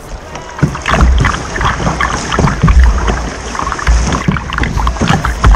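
A kayak running a river rapid: water splashing and slapping against the bow and paddle blades, close to a camera mounted on the bow, with dull low thumps. It grows louder about a second in as the boat hits the rough water.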